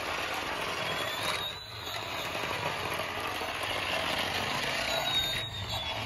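Remote-control toy fighter jet running across a stone floor: a steady whir from its small electric drive and wheels, dipping briefly twice, about a second and a half in and near the end.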